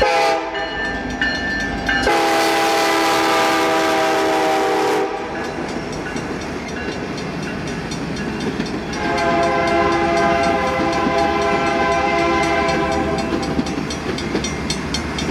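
Diesel locomotive air horn sounding two long multi-tone blasts, about two seconds in and again about nine seconds in, while a passenger train rolls past with its wheels clattering on the rails.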